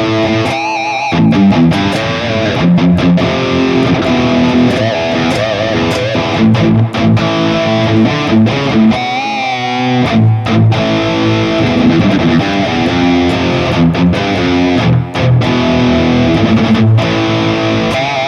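Distorted electric guitar played through the Mooer Prime S1 modeling unit: riffs mixed with single-note lines, with held notes shaken in vibrato about a second in and again around nine seconds.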